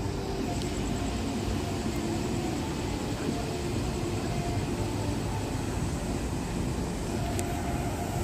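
Steady city street noise: a continuous low rumble, like traffic, with no distinct events.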